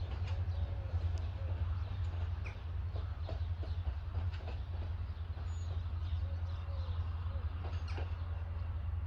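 A steady low rumble throughout, with faint bird calls and chirps over it.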